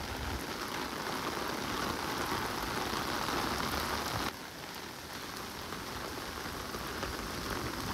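Steady hiss of falling rain, a little quieter after an abrupt change about four seconds in.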